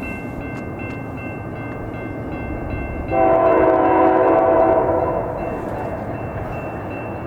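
Diesel freight locomotive sounding its air horn in one long blast of about two seconds, starting about three seconds in, over the steady rumble of the train. A thin, steady high ringing tone runs underneath.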